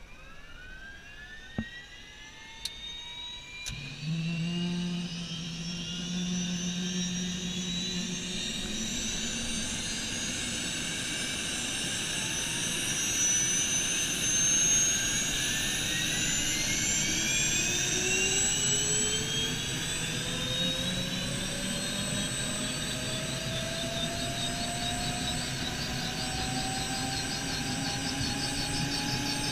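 Bell helicopter's turbine engine starting up: a whine rises in pitch as it spools up, and a deeper hum joins about four seconds in. Both climb steadily in pitch and loudness as the engine and rotor come up to speed, with a few clicks in the first seconds.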